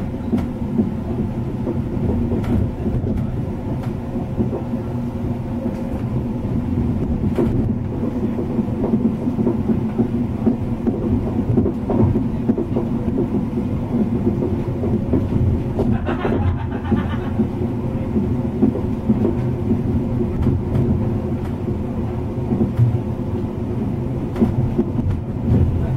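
Passenger train running at speed, heard from inside a coach: a steady low rumble of wheels on the rails with occasional clicks, and a brief louder rush of noise about two-thirds of the way through.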